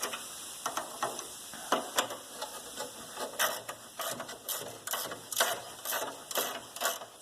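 Ratcheting wrench clicking in short, irregular runs while loosening bolts, the clicks coming thicker and louder from about three seconds in.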